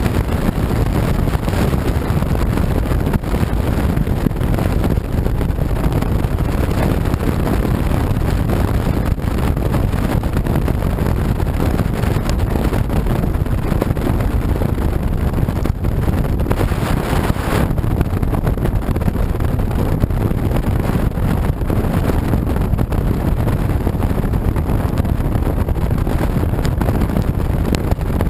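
Steady wind rush on a motorcycle-mounted camera's microphone, mixed with the motorcycle's engine and tyre noise on a wet road. A brief louder hiss comes about two thirds of the way through.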